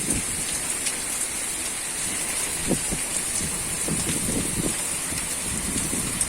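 Light rain falling with a steady hiss of drops on surfaces. A few soft low rumbles swell and fade partway through.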